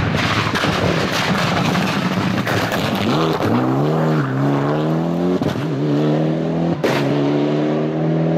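Rally car at full throttle: a loud noisy pass-by, then the engine note climbing and dropping through several quick upshifts, with a sharp bang about seven seconds in.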